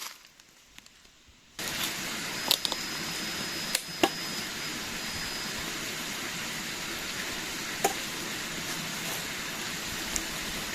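Steady rushing noise that starts abruptly about a second and a half in, after near silence. A few sharp clicks and a brief high whistling tone sit over it.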